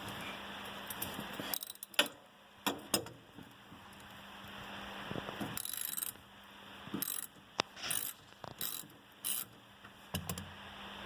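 Ratchet wrench clicking in short, irregular bursts as it is worked back and forth on a socket, loosening a shock absorber mounting nut.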